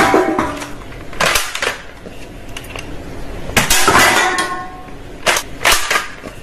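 Sharp clattering knocks and clinks, each with a short ringing tail: one about a second in, a cluster around three and a half to four seconds, and two more near five and a half seconds.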